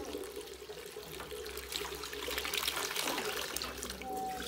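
Fresh milk pouring in a steady stream from a spout into a steel basin, splashing and frothing.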